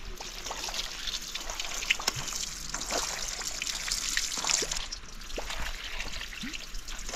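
Water from a pipe pouring and splashing into a metal bowl of cooked noodles being rinsed by hand, with a steady trickle and small drips plinking throughout.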